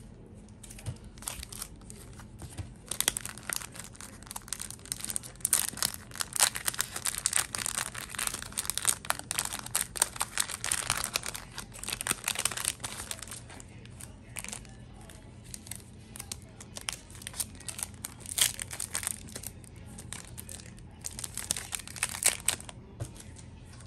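Crinkling of a clear plastic bag and a foil Yu-Gi-Oh booster pack wrapper being handled: dense crackling for about ten seconds, then shorter bursts.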